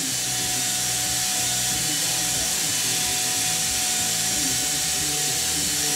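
Small cordless drill running steadily with a constant whine on a low speed setting, its 1/16-inch bit reaming out a small linkage hole by a tiny amount.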